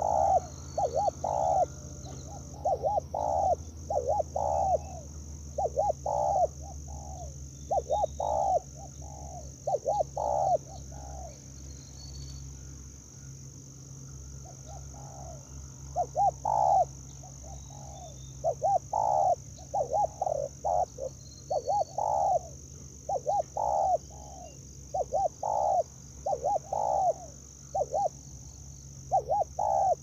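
Spotted dove cooing in repeated short phrases of a few low coos, with a pause of several seconds in the middle. A steady high insect buzz runs underneath.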